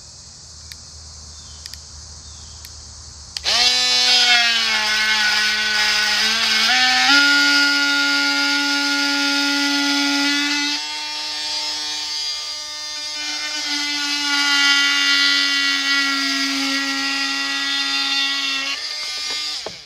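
Craftsman V20 cordless oscillating multi-tool cutting through 5/8-inch plywood: a loud buzzing whine that starts about three seconds in, steps up in pitch a few seconds later, dips in level partway through, and stops just before the end. Crickets chirp steadily before the tool starts.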